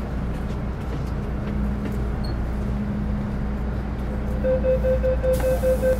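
Metro Cammell M-Train electric multiple unit standing at a platform with a steady low hum. About four and a half seconds in, the door-closing warning starts: a rapid string of high beeps, joined shortly after by a hiss.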